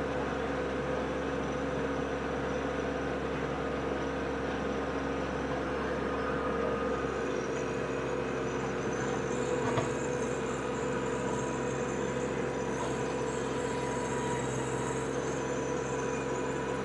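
TYM T264 compact tractor's diesel engine running steadily under load while its PTO-driven rear rotary tiller turns the soil, with a single brief tick about ten seconds in.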